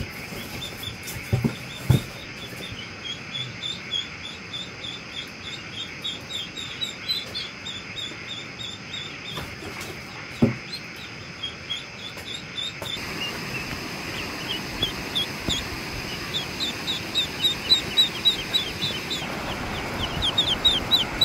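Ducklings peeping: a crowd of short, high peeps in quick runs, over a steady hiss that grows louder about halfway through. A few knocks near the start and once around the middle.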